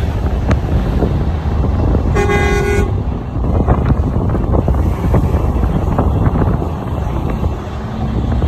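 A vehicle horn sounds once, a short steady honk about two seconds in, over the steady low rumble of wind and traffic.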